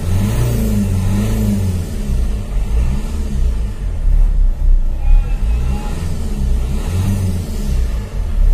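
Renault Duster engine being revved several times from idle, the pitch rising and falling with each blip of the throttle.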